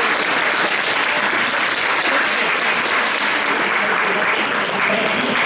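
An audience of diners applauding: many hands clapping together in a steady, even patter.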